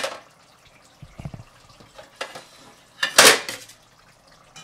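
Metal kitchenware clanking: a spatula knocking against a metal cooking pot of curry, a few separate clanks, with the loudest, longest clatter about three seconds in.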